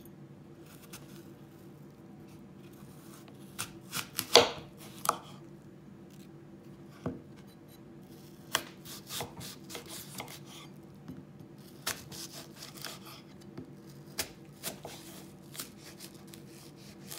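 Kitchen knife cutting through a green apple on a wooden cutting board: a dozen or so separate cuts, each ending in a sharp knock of the blade on the board, the loudest about four seconds in.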